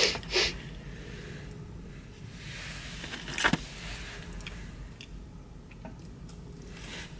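A person quietly chewing French fries, with two short noises right at the start and a single sharp click about halfway through.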